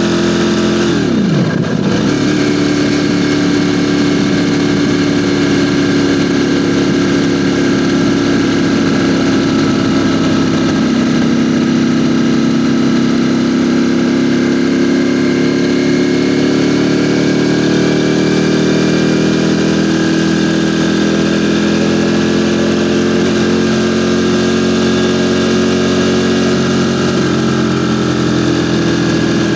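Ducati Panigale V4 motorcycle's V4 engine running under way. Its pitch dips sharply and comes back about a second in, as at a throttle chop or gear change, then sags slowly and climbs over many seconds before a small step down near the end.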